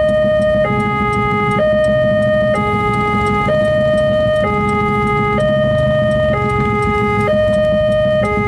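Railway level-crossing warning alarm sounding, an electronic two-tone that alternates between a high and a low tone about once a second, signalling that a train is coming while the barrier is down. A low steady rumble lies beneath it.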